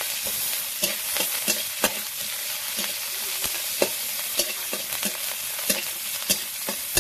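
Sliced onions sizzling in hot oil in a steel kadai, stirred with a metal spatula that clinks and scrapes against the pan again and again over a steady frying hiss.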